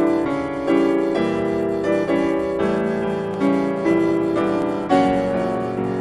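Background piano music: single notes and chords struck in a steady, unhurried pulse.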